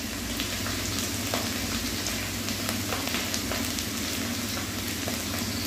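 Sliced potatoes and drumstick pieces frying in mustard oil in a steel karai: a steady sizzle with scattered small crackles.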